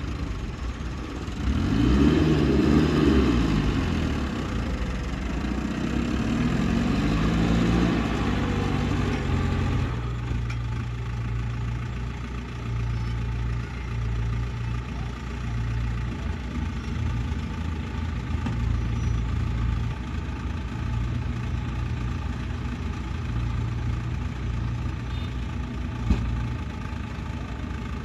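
Tipper truck's diesel engine revving up and down as the loaded truck manoeuvres, then running steadily from about ten seconds in while the body is raised to tip the soil. A single sharp click near the end.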